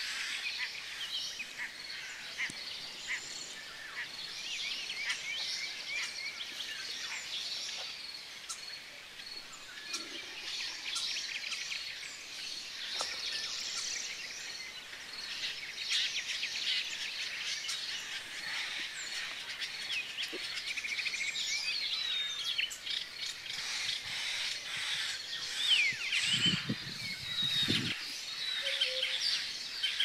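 Several songbirds singing at once, a dense mixed chorus of chirps, trills and whistles. Near the end a brief low rumbling sound rises under the birdsong.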